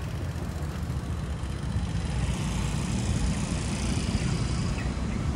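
Steady low rumble of engines on a city street: motor scooters and cars idling and passing.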